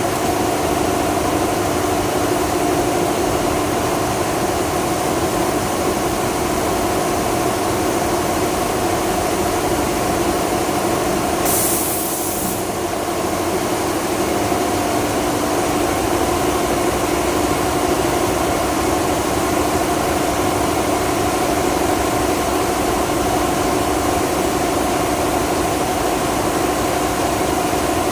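Automatic baffle box duvet sewing machine running steadily, a continuous mechanical noise with a steady drone in it. A brief high hiss breaks in about twelve seconds in.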